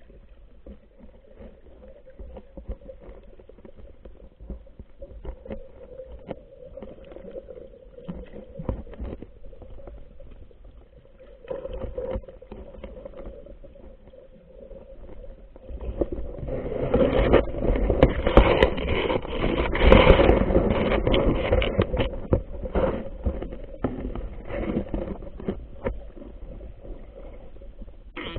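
Muffled underwater noise through a waterproof camera housing: a steady low hum with water churning and scattered clicks. It grows much louder for several seconds past the middle.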